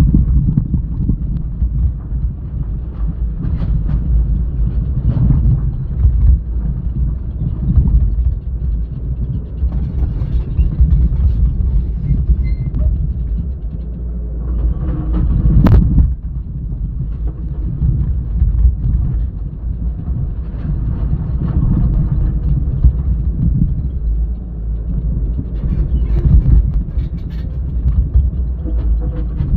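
Excavator working at a dump truck, its diesel engine a loud low rumble that swells and eases every few seconds, with one sharp knock about sixteen seconds in.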